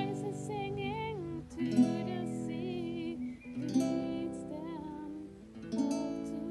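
A woman singing a slow song to an acoustic guitar. The guitar strikes a chord about every two seconds, and her voice holds long notes with vibrato.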